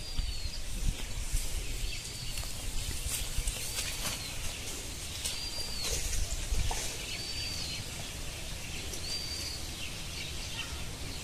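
A bird repeating a short whistled note that rises and falls, six times at about two-second intervals, over a steady low rumble.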